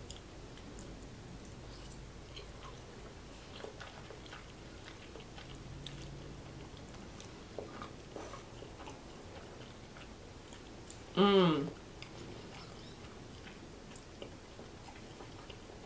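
Faint chewing of soft macaroni and cheese, with small clicks of a metal fork on a glass bowl. About eleven seconds in, one short hummed "mmm" falling in pitch.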